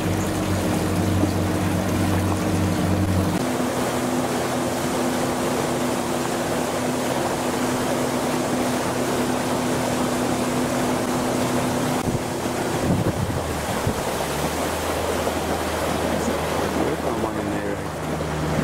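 Motorboat engine running steadily beneath wind buffeting the microphone and water rushing past the hull. The engine's low note changes abruptly about three seconds in and again about thirteen seconds in.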